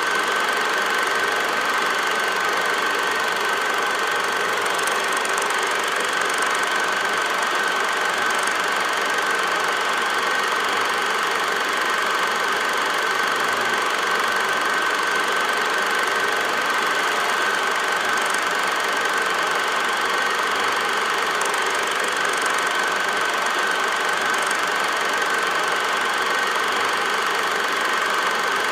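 8mm film projector running: a steady mechanical whir and clatter with a constant high whine.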